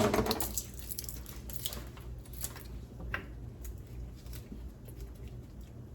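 Barbecue sauce being squeezed from a plastic bottle into a pot of meatballs: faint squishing with a few light clicks, after a sharp knock right at the start, over a steady low hum.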